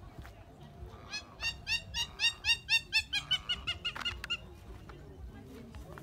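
A bird calling a rapid series of about fifteen short, nasal notes, about four a second, starting about a second in; the later notes are flatter and quieter.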